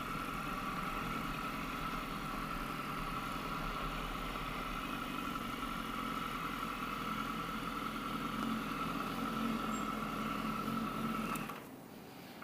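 Motorcycle engine idling steadily, then switched off about a second before the end, when it cuts out suddenly.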